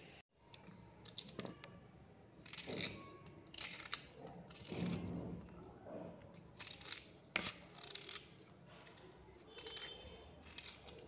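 Knife cutting crisp raw green mango into small pieces, a dozen or so short, irregular scraping cuts with a few sharp clicks as the pieces are sliced off and dropped onto the plate.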